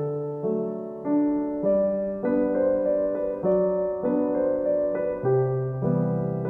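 Background piano music, with notes or chords changing at an even pace of about one every half second.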